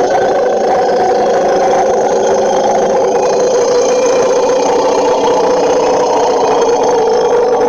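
Made-up mammoth call for a creature sound effect: one long, loud call held at a steady pitch, with a rough, rattling texture.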